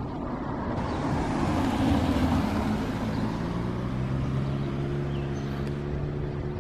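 Car engine and road noise: a rush that swells to its loudest about two seconds in, then settles into a steady low engine hum.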